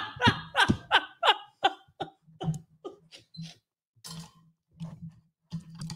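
A woman laughing in a rapid run of short bursts that grow fainter and further apart, trailing off into a few faint breathy chuckles.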